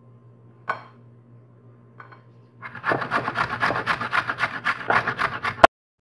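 Raw tapioca (cassava) root rubbed by hand against a grater: a run of quick rasping strokes that starts a few seconds in and cuts off suddenly near the end. A single sharp knock about a second in comes first.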